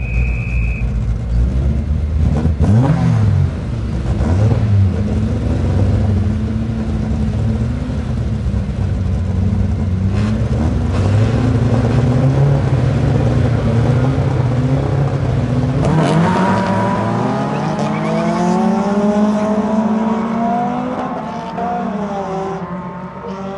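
Several rallycross cars revving their engines, pitches going up and down, then accelerating away together about two-thirds of the way in. The engine notes climb and fade as the cars pull off. A short high beep comes at the very start.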